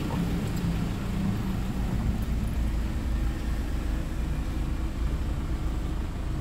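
Toyota Fortuner's VNT turbo-diesel engine idling: a steady low hum heard from inside the cabin.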